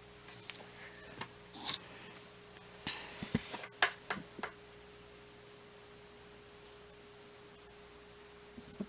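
Light clicks and taps of painting supplies being handled on a table, clustered in the first half, over a faint steady electrical hum that runs on alone afterwards.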